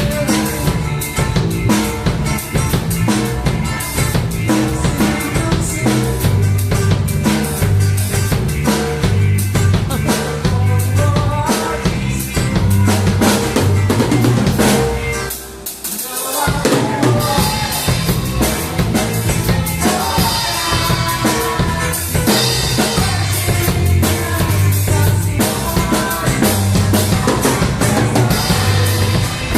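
A worship band playing with a full drum kit keeping a steady beat under bass and other instruments. The music drops away briefly about halfway through, then comes back in full.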